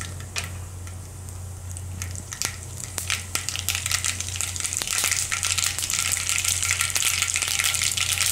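Mustard seeds sizzling and crackling in hot oil in a kadhai, the start of a tempering (vaghar). The crackling thickens and grows louder about halfway through as the oil heats the seeds.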